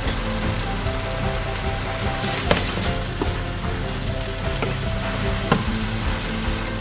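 Mackerel-and-vegetable keema mixture sizzling in a frying pan on medium heat while being stirred with a wooden spatula, with a few sharp knocks of the spatula against the pan, the loudest about two and a half and five and a half seconds in.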